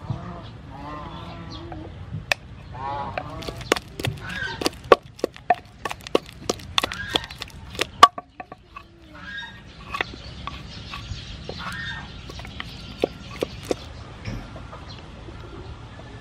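Wooden pestle and metal spoon knocking and tapping in a large wooden mortar as palm sugar is scraped in and pounded with chili and garlic, a quick run of sharp knocks in the middle and fewer later. Chickens cluck about a second in and again around three seconds in.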